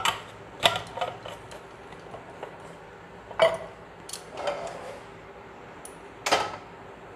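Several sharp knocks and clatters of kitchen things being handled beside a nonstick frying pan as cooking oil is poured in from a plastic bottle. The loudest knocks come about half a second in, at about three and a half seconds, and just after six seconds.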